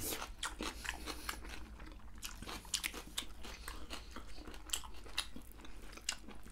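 Two people chewing and biting on deep-fried goat meat and rice: irregular crunching clicks and mouth sounds.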